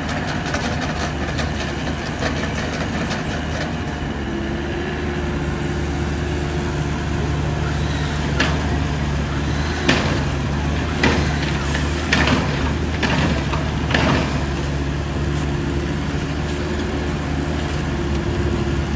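Excavator's diesel engine running steadily, with a steady whine coming and going over it and a series of sharp clanks and knocks in the middle.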